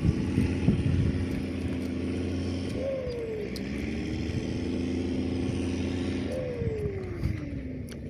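A motor engine running with a steady hum, its pitch sliding down three times in long drops, with two sharp knocks about a second in.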